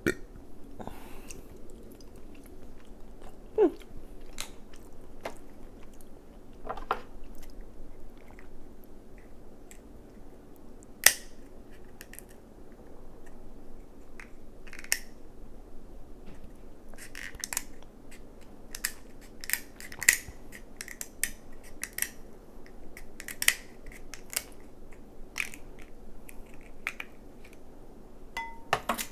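Close-up eating sounds of crab: chewing, with sharp clicks and cracks of crab shells being cut and broken apart, scattered throughout and coming thicker in the second half.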